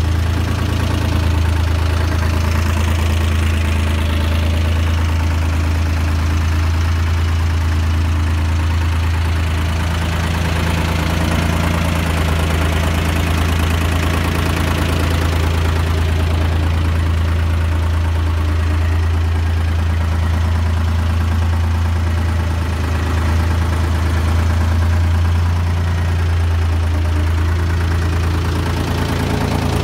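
Air-cooled three-cylinder Slanzi DVA 1550 diesel in a Staub GM440 tractor, running steadily with a deep, even hum. The engine is freshly rebuilt, with new big-end bearings, new rings and deglazed cylinders.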